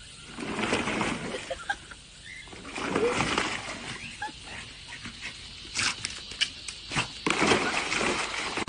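A dog splashing in a plastic kiddie pool full of soapy foam, in irregular splashy swells with a bigger splash near the end as it jumps back in.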